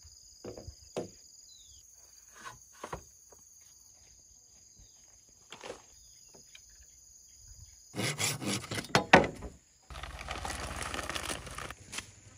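Insects chirring steadily as two high tones, with a few light knocks. About eight seconds in the chirring gives way to a run of loud knocks, the loudest around nine seconds, followed by about two seconds of rustling, scraping noise.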